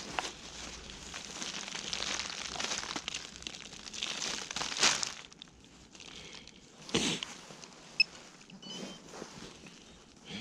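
Crunching and rustling of soil, dry leaves and grass as a digging knife works a small hole and the find is handled in gloved hands. The noise is dense for about the first five seconds, then quieter with a few separate knocks and a sharp click.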